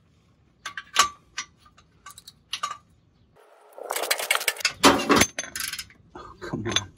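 Metal hand tools clinking as a socket ratchet and wrench are set on the exhaust flange bolts, a few separate clicks and taps. About three and a half seconds in comes roughly two seconds of dense metallic clatter and ratcheting.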